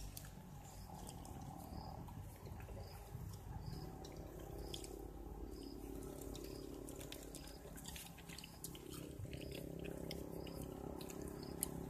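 Quiet chewing and wet mouth clicks of a person eating fried chicken.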